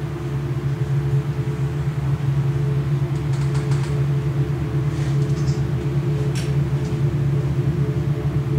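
A steady low electronic drone with a few held tones above it, the dark ambient score of a contemporary dance piece. A few faint short rustles come about three, five and six seconds in.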